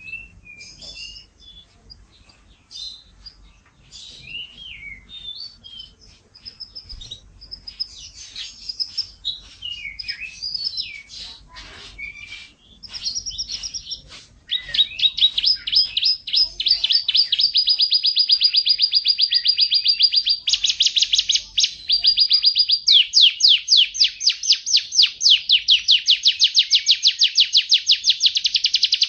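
Domestic canary singing: varied short chirps and warbles at first, then from about halfway long, loud, fast trills of rapidly repeated notes that switch to new trill types every few seconds.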